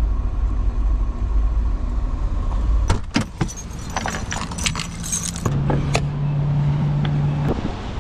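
Steady low road rumble inside a moving truck's cab, which cuts off about three seconds in. Then keys jangle and sharp clicks come as the truck's door is opened, and near the end a steady low hum runs for about two seconds while the truck is filled with diesel.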